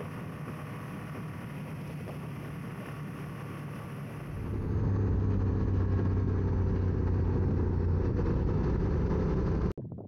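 Wind rushing over the microphone while a Honda Africa Twin CRF1000L motorcycle rides at road speed. About four and a half seconds in it gives way to a louder, steady run of the bike's parallel-twin engine at constant speed, which cuts off abruptly just before the end.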